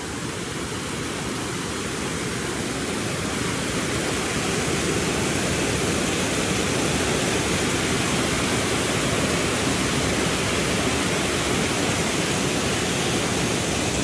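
Waterfall rushing steadily over a rock ledge, heard close up; the rush grows a little louder over the first few seconds and then holds steady.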